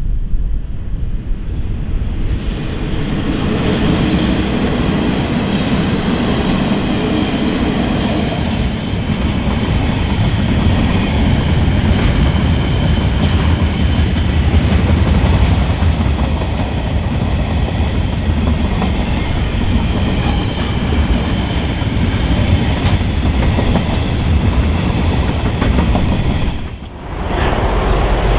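General Electric DX-class diesel-electric locomotives of a KiwiRail freight train run past at close range, followed by container wagons rolling by with a steady clickety-clack of wheels on the rails. Near the end the sound dips briefly and gives way to a more distant train.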